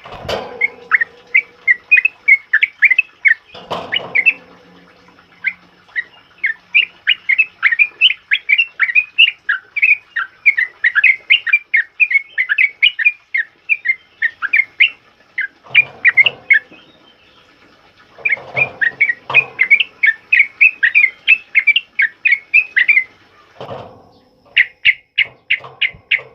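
A yellow-vented bulbul (trucukan) singing its fast, loud 'ropel': long runs of quick, sharp chirping notes, about three or four a second, broken by a few short pauses. A few brief, lower rustling sounds fall between the runs.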